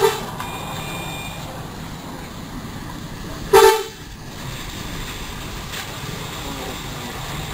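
Two short vehicle horn toots about three and a half seconds apart, each a brief loud blare, over a steady low background noise.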